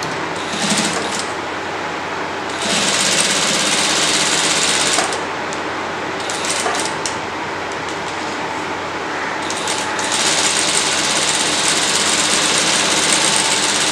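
Table-mounted sewing machine stitching in bursts as a folded fabric strip is sewn down along its edge: a brief run about a second in, a longer run of about two and a half seconds, a couple of short spurts around the middle, then a long steady run from about ten seconds to the end.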